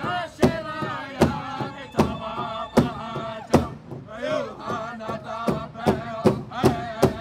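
Native American powwow drum group: several drummers strike one large shared drum in unison while singing a chant together. The beat is steady at a little over one stroke a second, then quickens to about two and a half strokes a second about five seconds in.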